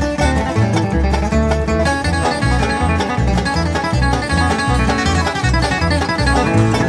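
Instrumental bluegrass music: fast picked guitar and banjo over a steady run of bass notes, with no singing.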